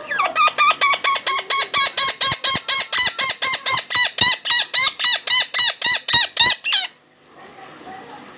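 Red-breasted parakeet (Javan betet) calling in a long, loud run of harsh, rapidly repeated squawks, about five a second, that stops abruptly near the end.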